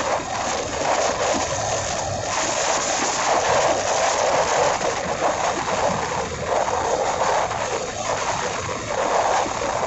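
Steady rushing wind noise on the microphone of a phone carried on a moving motorbike, mixed with the bike's road noise.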